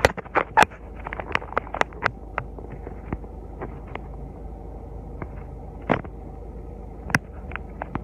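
Irregular sharp clicks and taps, many in the first two seconds and then a few scattered ones, over a steady low hum.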